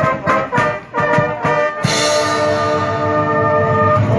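Marching band with brass and drums playing short, accented chords. About two seconds in, a cymbal crash comes with a long held brass chord.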